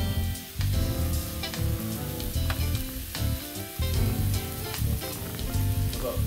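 Steak sizzling as it sears on a hot flat-top griddle, with background music playing.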